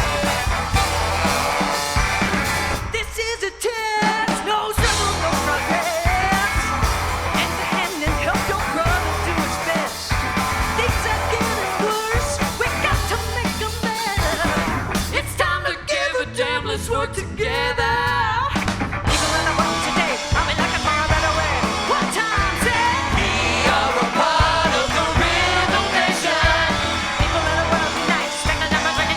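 A live soul band playing an upbeat groove with drum kit, bass and a singer's voice over it. Around 3 seconds in and again from about 16 to 18 seconds, the backing thins under a lead line that bends and wavers in pitch.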